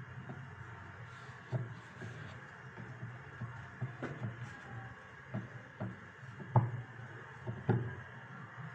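Rolling pin rolling roti dough on a round board, with a series of irregular light knocks as the pin bumps and rocks against the board. The loudest knock comes about two-thirds of the way through.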